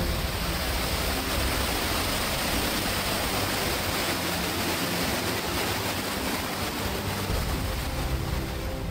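Small waterfall on a rocky creek pouring down beside the trail, a steady rush of white water.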